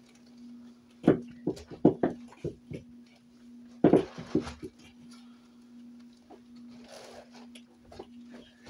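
A quick run of knocks and thumps starting about a second in, then a louder scuffling thump near four seconds, over a steady low hum.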